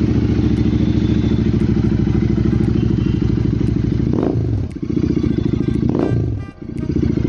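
Royal Enfield Interceptor 650 parallel-twin engines running on open aftermarket exhausts with no dB killers, idling steadily, then blipped three times about two seconds apart, each rev rising and dropping back.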